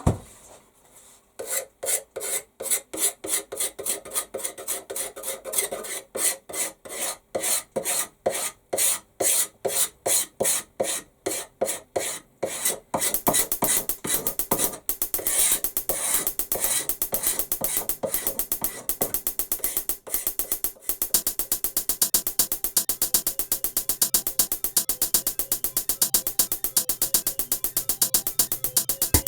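Repeated abrasive hand strokes on wood, about three a second at first, then much faster and nearly continuous from about thirteen seconds in.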